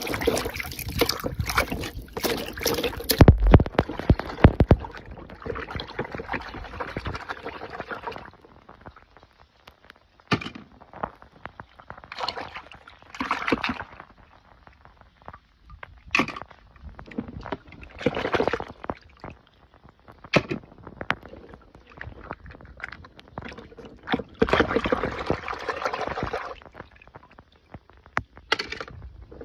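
Water sloshing and splashing in repeated bursts. In the first few seconds there is a run of clicks and clatter from small plastic pieces being handled.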